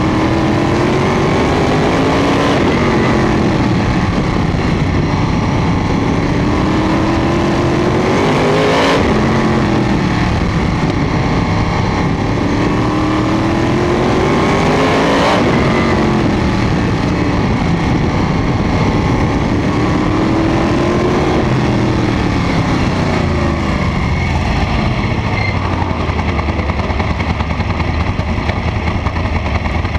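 Sprint car's V8 engine heard on board at speed. Its pitch climbs along each straight and drops sharply when the driver lifts, about nine seconds in and again some six seconds later. After one more climb it winds down to a low, steady run near the end as the car slows.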